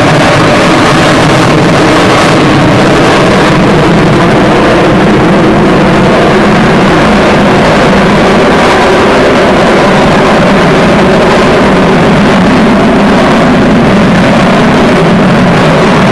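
Avro Vulcan bomber's four Olympus turbojet engines in a flying display. A loud, steady jet roar with several steady droning tones beneath it, holding level throughout.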